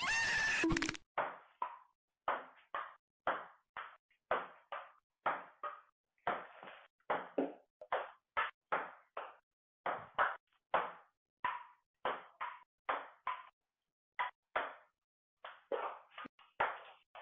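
A table tennis ball clicking in a rally, bouncing on the table and struck with a paddle and a wooden board, about two sharp knocks a second with short pauses. A short burst of music at the start cuts off after about a second.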